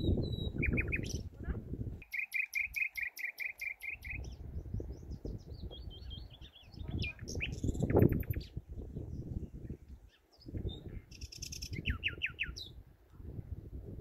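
Common nightingale singing from dense scrub: varied phrases broken by short pauses, including a fast run of repeated notes, about five a second, about two seconds in, and a burst of quick sweeping notes near the end. A louder low rumbling noise runs underneath and comes and goes.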